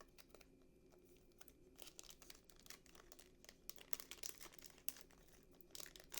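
Faint crinkling and tearing of a trading-card booster pack wrapper being worked open by hand, a stream of irregular small crackles; the pack is harder to open than expected.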